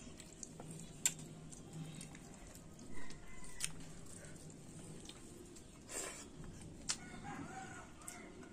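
A rooster crows, one call of about a second near the end. A few short sharp clicks are heard over it.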